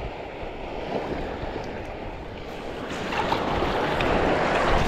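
Shallow seawater sloshing with small waves washing in, louder from about three seconds in.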